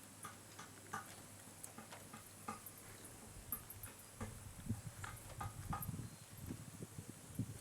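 Shiba Inu eating a treat: irregular short clicks, then from about halfway a denser run of low, uneven mouth smacks.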